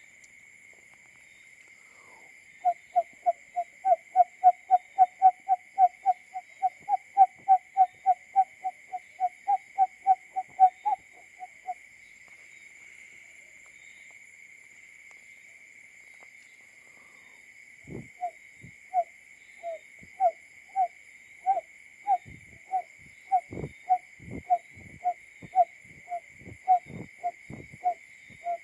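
Male barred buttonquail call, a simulated call used as a lure. It begins with a fast run of short hooting notes, about four a second, for roughly nine seconds. After a pause comes a slower series of hoots with low thumps under several of them.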